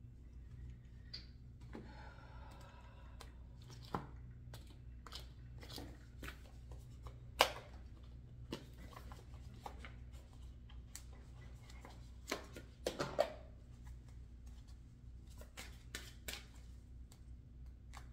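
Tarot cards being handled and shuffled: scattered light clicks and taps of cards, a few sharper ones about 4 s, 7 s and 13 s in, over a low steady hum.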